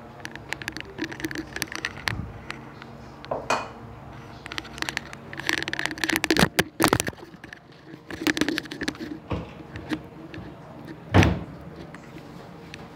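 Kitchen handling noises: scattered clinks and knocks of utensils and pans on a gas stove and countertop, with one louder knock about eleven seconds in.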